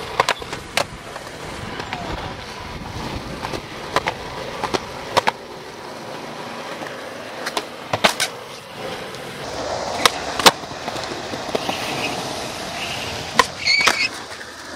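Skateboard wheels rolling on concrete with about ten sharp clacks spread through, from boards popping, trucks hitting ledges and landings.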